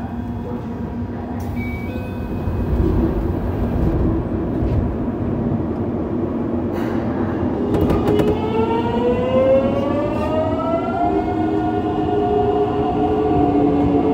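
Mitsubishi GTO-VVVF inverter and traction motors of a Yokohama subway 3000A car pulling away, heard from inside the car. Low running rumble, then about halfway through a brief cluster of clicks and the inverter's multi-toned whine rising in pitch, shifting in steps as the train accelerates.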